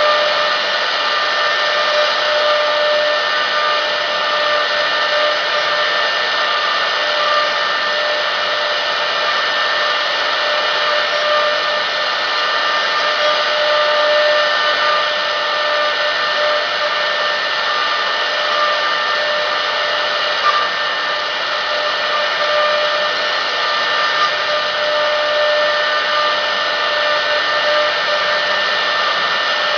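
CNC router spindle running at speed with a steady high whine, its small ball-nose bit carving a wooden block that turns in a rotary-axis chuck.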